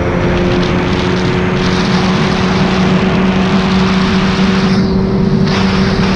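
Outboard motor of a small Boston Whaler skiff running at a steady cruising speed, with an even drone, under a loud rush of wind and water.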